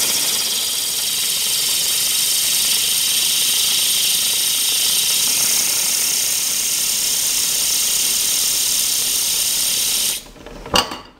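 Compressed-air blow gun hissing steadily as it blows air into a small vertical axis wind turbine, cutting off suddenly about ten seconds in; a single sharp click follows near the end.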